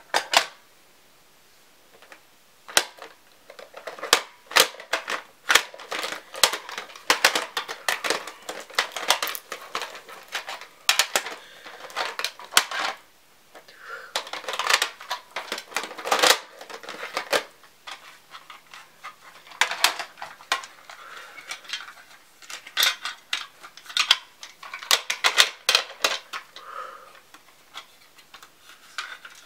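Plastic cassette tapes and their hard plastic cases being handled, opened and shut: an irregular run of clicks, clacks and rattles, with a short lull about a second in.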